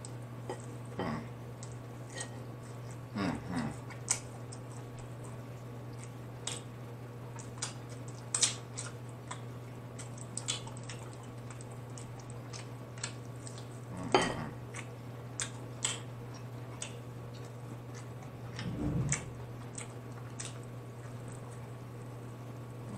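Close-up eating of a sauce-covered steak: scattered wet mouth smacks and chewing sounds, a few louder than the rest, over a steady low hum.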